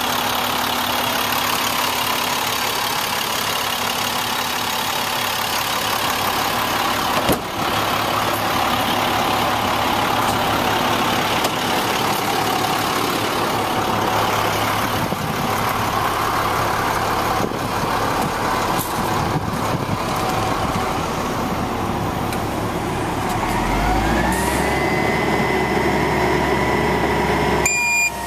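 International digger truck's diesel engine running steadily. About 23 seconds in, a whine rises in pitch and then holds. A beeping alarm starts right at the end.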